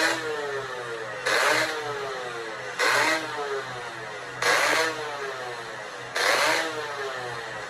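Suzuki Satria 'Lumba' 120 cc two-stroke single fitted with an AHM aftermarket exhaust, its throttle blipped five times. Each blip revs sharply and the pitch falls back over about a second and a half before the next.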